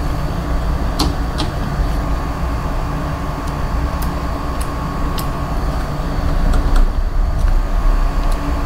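Tusk adjustable clutch lever's cable adjuster being turned by hand to take up cable free play, giving a scattering of short sharp clicks over a steady low hum.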